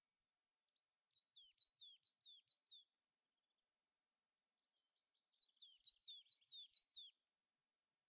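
A songbird singing faintly: two phrases of repeated high notes, each note sliding downward, the first phrase starting about half a second in and the second about four and a half seconds in.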